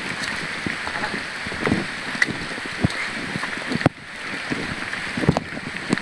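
Steady hiss of heavy rain, with irregular low thumps and knocks through it and a brief drop in level a little past the middle.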